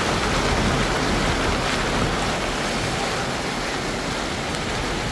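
Steady rushing noise of a car driving through a flooded road in rain: water churned and sprayed by the tyres and rain on the car, heard from inside the car.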